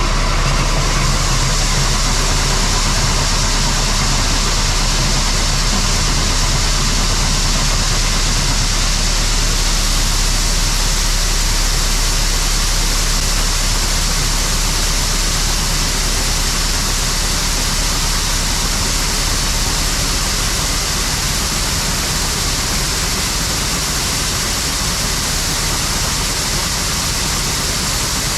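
Farm vehicle engine running steadily, a low drone under a loud even rushing hiss.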